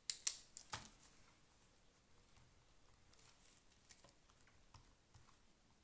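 Ballpoint pen writing on notebook paper, with faint scratching strokes. A few sharp rustles and knocks of hands on the notebook in the first second are the loudest part.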